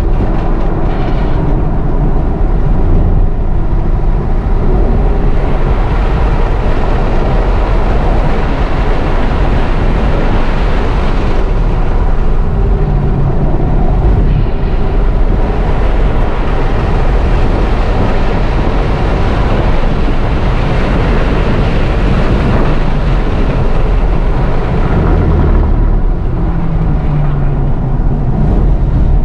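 Tesla Model 3 Performance at speed on a race track: loud, steady wind and road noise with a heavy low rumble.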